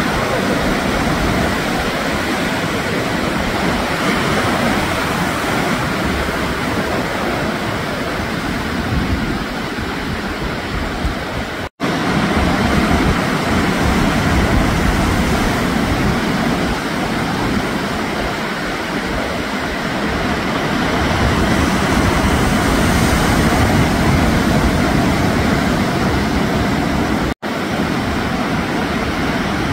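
Steady, even roar of ocean surf with a low rumble underneath, cutting out for an instant twice: about twelve seconds in and near the end.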